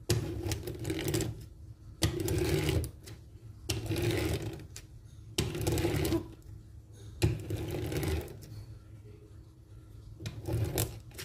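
Wooden gear train and ratchet pawls of an Ugears mini buggy clicking in a fast, even rattle as the model is rolled backward over a cutting mat to wind its rubber-band motor. It comes in about six strokes of a second or so each, with short pauses between.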